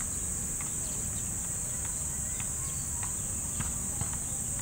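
Outdoor ambience: a steady high-pitched insect drone over a steady low rumble, with a few faint light taps.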